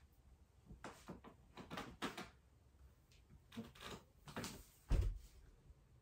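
Rustling and shuffling of a person getting up off a yoga mat and moving, a string of short soft knocks and scuffs, then a dull thump about five seconds in as the camera is handled.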